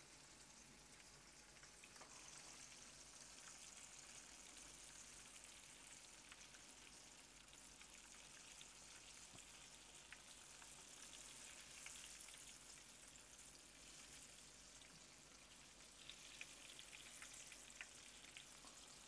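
Faint, steady sizzling of apple fritters shallow-frying in hot oil in a skillet, with a few light ticks as a spoon turns them.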